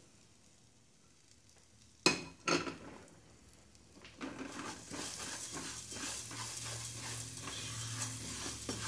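Minced shallot and toasted jasmine rice sizzling in hot oil in a saucepan while a spatula stirs and scrapes through them, the shallot starting to sweat. Two sharp knocks come about two seconds in, and the sizzle and stirring build from about four seconds on.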